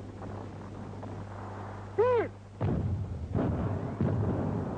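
Artillery fire on an old film soundtrack: a steady low hum, a short whistle-like tone that rises and falls about two seconds in, then a string of heavy booms of gunfire and explosions.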